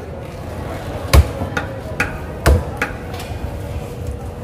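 Machete chopping tuna on a thick wooden chopping block: about six sharp knocks at uneven spacing, the loudest about a second in and another at about two and a half seconds.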